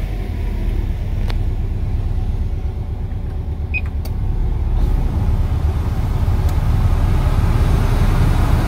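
Subaru Legacy RS's 2.0-litre twin-turbo boxer four idling, heard from inside the cabin as a steady low rumble. A short beep sounds about four seconds in as a climate-control button is pressed.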